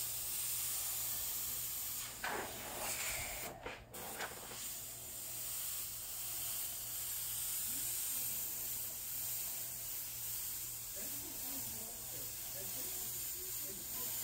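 Airbrush spraying paint: a steady hiss of compressed air from the nozzle, which cuts out briefly about three and a half seconds in.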